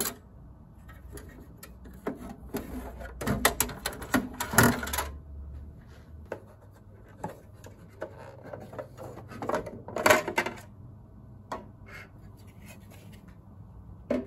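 Hands handling metal server parts: irregular clicks, knocks and rubbing, with the busiest clatter two to five seconds in and another burst around ten seconds in, as the cover is taken off a CPU and memory module.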